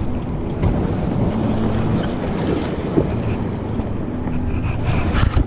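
Wind buffeting the microphone over the wash of waves on rough open water, a steady heavy rumble with a few brief knocks near the end.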